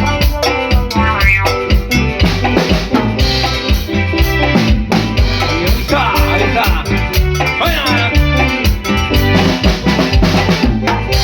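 A band playing a song, with a drum kit keeping a steady beat under pitched instruments.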